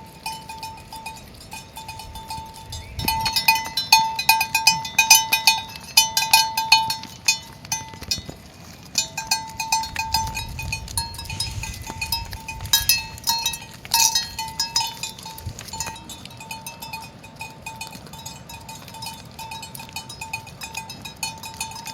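Small metal livestock bells clinking and jangling over and over, as animals wearing them move about; the clinking is busiest for the first half and then settles into a lighter, steadier ringing.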